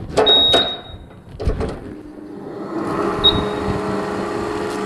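Computerized flat knitting machine: a few clacks and a short high tone near the start, then from about halfway its motor and carriage drive rise to a steady mechanical hum.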